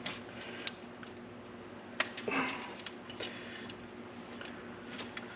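Pliers crushing the brittle, aged plastic end fitting of a transmission kickdown cable, giving a few sharp cracks and clicks. The loudest comes about two-thirds of a second in and another at two seconds, with smaller ticks between.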